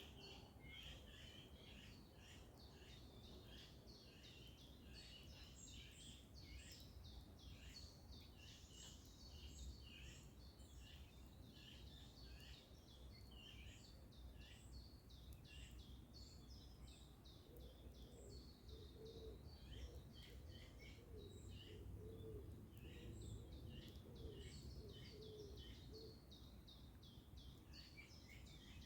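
Faint morning chorus of many small birds chirping and singing over a steady low rumble of outdoor background noise, with a run of lower, repeated calls joining in the second half.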